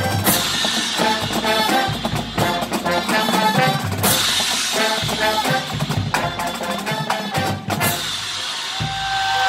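Drum and bugle corps playing on the march: brass horns over a drum line with snare and bass drums. Crash cymbals are struck three times, near the start, about halfway and near the end, and a single steady tone starts just before the end.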